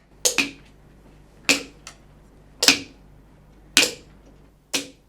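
Five sharp percussive strikes in a slow, even beat, about one a second, each dying away quickly.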